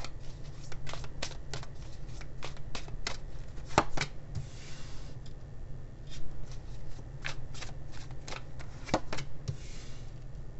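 A tarot deck being shuffled by hand, a run of quick crisp card clicks and taps. Cards are then slid off the deck and laid onto the table, with a soft sliding swish twice, about four and a half and nine and a half seconds in.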